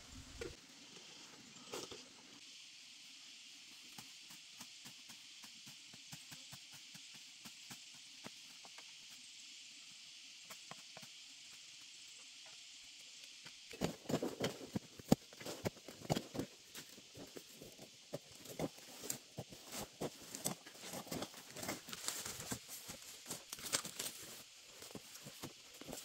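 A faint steady hiss, then, about halfway through, a metal digging tool starts striking into soil and roots over and over. The chops come several a second at an uneven pace, with soil crumbling and scraping.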